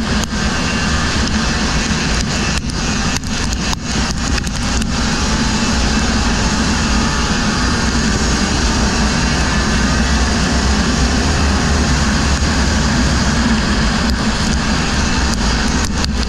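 Race vehicles' engines running hard and continuously under a dense rush of noise, with faint wavering engine pitch and a few short dropouts or clicks in the first few seconds.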